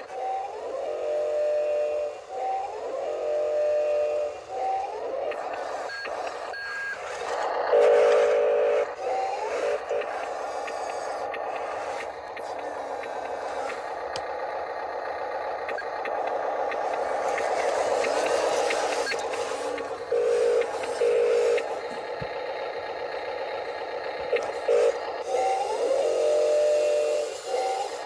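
Electronic sound effects from an RC toy construction vehicle: short tones repeated in bursts, each with a brief rising chirp, and a steady engine-like noise through the middle.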